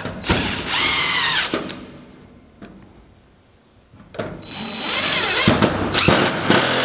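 Cordless drill boring into half-inch OSB in two runs: a short burst of about a second near the start, then a longer run from about four seconds in.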